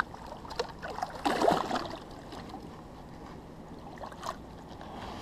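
River water splashing and trickling at the bank while a hooked catfish is fought on the line, with a few small knocks and clicks. A louder stretch of splashing comes about a second and a half in.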